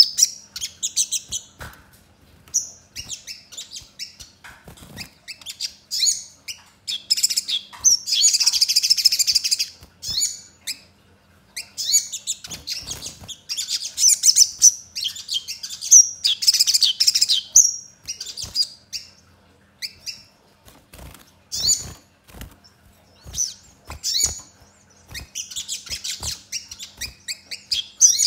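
A caged sogon (little spiderhunter) singing: rapid, high-pitched chirps and trills in phrases of one to two seconds, separated by short gaps, with the densest singing about 8 to 10 seconds in and again in the last few seconds. A few soft knocks from the bird moving in its cage come between phrases.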